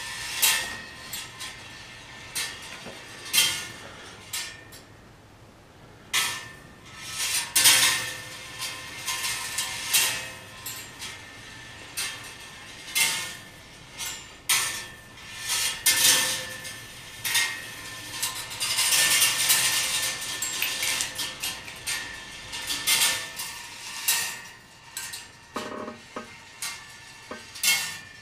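Metal balls rolling and dropping through the bent-wire tracks of a kinetic marble-run sculpture. Irregular metallic clicks and clanks come as they strike wire and metal parts, with now and then a longer rolling rattle.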